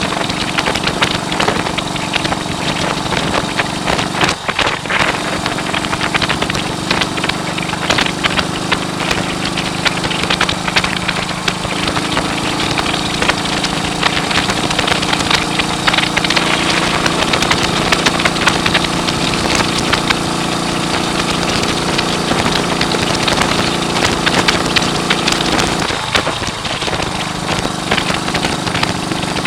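1939 AJS Model 22 250 cc single-cylinder motorcycle engine running, its pitch shifting a few times as the revs change, with wind noise buffeting the microphone.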